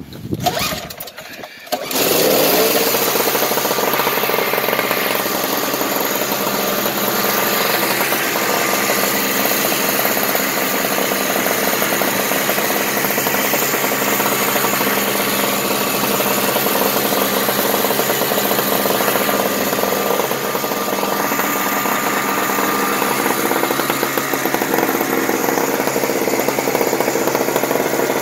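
Craftsman 5 HP two-stroke snow blower engine being cranked on a cold start, choke off and primed with three presses. It catches about two seconds in and then runs steadily.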